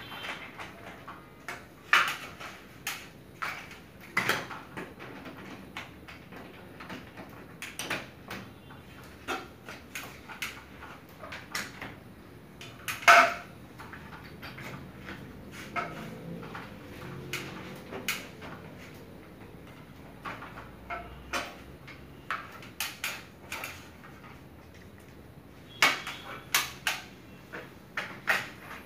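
Scattered clicks and knocks of plastic and metal as hands work on a ceiling-cassette air-conditioner unit's panel and the parts behind it. One knock about halfway through is the loudest, and a quick run of clicks comes near the end.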